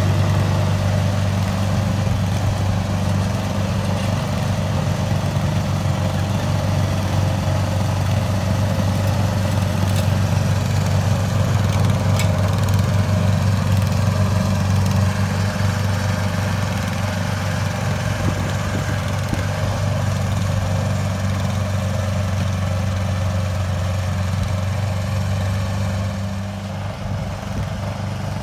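Small engine of a 1/8-scale ride-on rotary snowplow train running steadily with an even low hum, a little quieter near the end.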